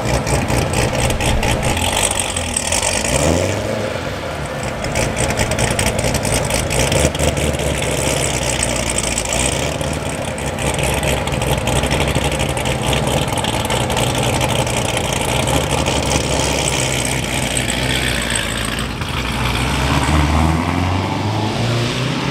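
The 1500 hp race Corvette's engine, running with no catalytic converters, idling loudly as the car creeps off at low speed, with a short rev about three seconds in and revs climbing in steps near the end.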